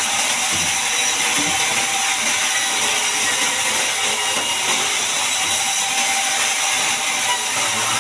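Sawmill band saw cutting through a large mahogany log: a steady, even sawing noise with no breaks.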